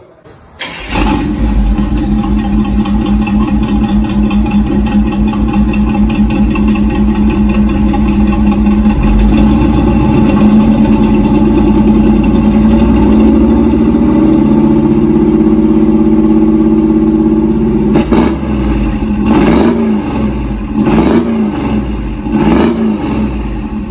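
A 1978 Chevy K10's 350 small-block V8 runs through long-tube headers, an H-pipe and Black Widow 300 mufflers, with no catalytic converters. It starts with a lopey hot-rod idle, picks up to a steady 2000 rpm, then near the end is revved sharply four times, each rev rising and falling.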